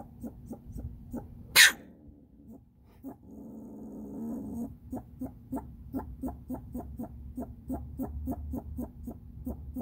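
Ringtail (Bassariscus astutus) in a wire cage trap calling in a steady series of short, quick calls, about three or four a second. A single sharp snap about a second and a half in is the loudest sound.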